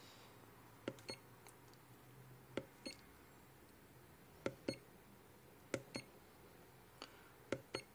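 Front-panel button on a ZOYI ZT-DQ01 handheld LCR meter pressed five times, each press giving a quick pair of short clicks, as the AUTO/S/P button steps the meter's equivalent-circuit mode through series, auto and parallel.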